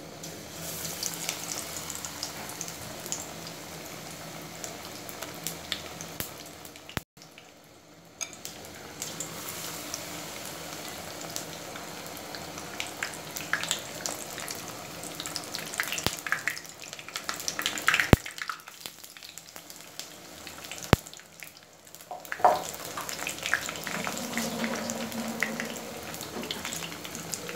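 Batter-coated aubergine slices (beguni) deep-frying in hot oil, a steady sizzle full of fine crackles. There are a few sharper, louder crackles in the second half, and the sound dips out briefly about seven seconds in.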